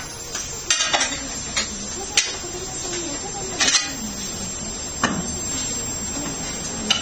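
Scattered metal clinks and clanks from tyre-changing work, a few of them short noisy bursts, over a steady workshop hum.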